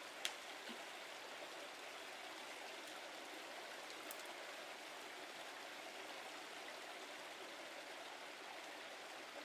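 A brook running steadily, an even rushing of water. A sharp click sounds about a quarter second in, and a fainter one near the middle.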